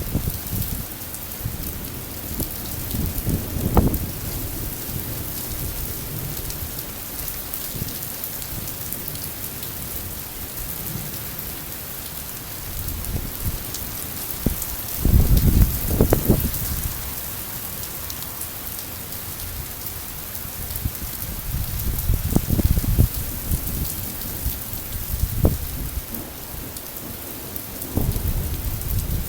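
Heavy rain falling steadily in a summer thunderstorm, with low rumbles of thunder swelling up several times, the strongest about a quarter and a half of the way through.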